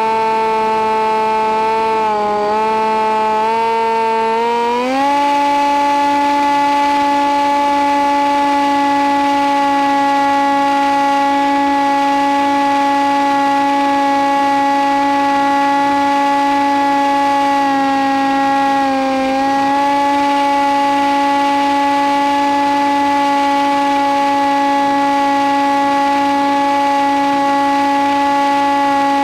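Electric motor and propeller of a Nitroplanes Easy Hawk RC plane, heard through its onboard audio transmitter: a steady whine. The pitch rises about five seconds in as the throttle is opened and the motor draws more current, then holds, with a brief dip about two-thirds of the way through.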